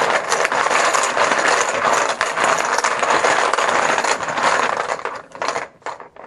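Poker chips clattering loudly in a bucket as they are mixed for a random draw, thinning to a few separate clicks near the end.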